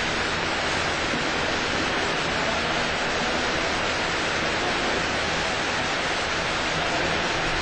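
Steady, even hiss that does not change, with no other sound standing out.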